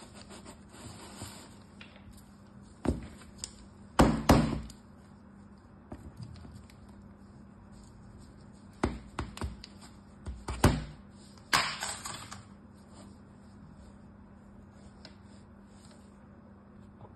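Hands knocking and tapping a plastic turtle-shaped sand mould packed with kinetic sand, to loosen the sand. There are a few scattered knocks, a loud double knock about four seconds in, and another cluster of knocks between about nine and twelve seconds.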